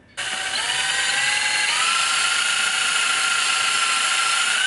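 Cordless drill boring a pilot hole into the thick aluminium end tank of a front-mount intercooler: a steady motor whine that steps up in pitch about a second and a half in as the drill speeds up.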